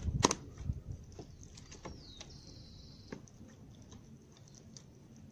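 Thin stream of water from a plastic bottle trickling onto loose potting soil, with faint patter and ticks. A couple of sharp clicks sound near the start, and about two seconds in a high thin tone slides down and holds for about a second.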